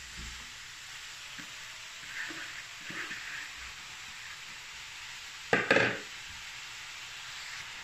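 Washed, sliced oyster mushrooms sizzling with a steady hiss as they land in a hot, dry pot with no oil, with some rustling as pieces drop in. A short, louder clatter sounds a little past halfway through.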